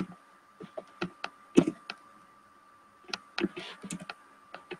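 Light, irregular clicks of a computer keyboard, in small clusters with short gaps, over a faint steady high tone.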